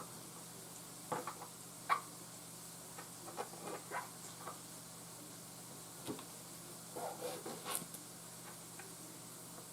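Knife cutting through a small stack of corn tortillas on a cutting mat: scattered light taps and cuts, the sharpest about two seconds in, over a faint steady low hum.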